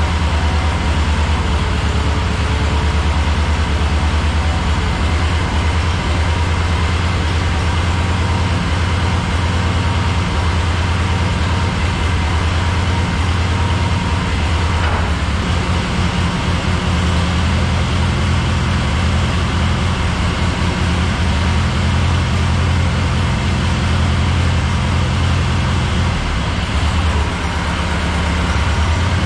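Continental flathead four-cylinder engine of a vintage Clark forklift running steadily, its low firing note dipping briefly near the end before picking up again.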